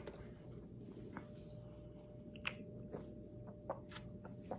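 Quiet sounds of someone drinking juice from a plastic bottle: a few soft, scattered swallowing clicks over a faint steady hum.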